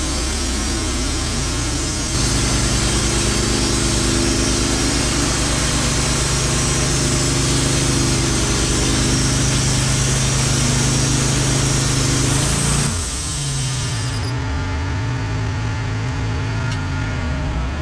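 Wood-Mizer LT15 band sawmill's gas engine running steadily; about two seconds in it speeds up and the band blade cuts along an eastern white pine cant, then the engine drops back to idle about thirteen seconds in.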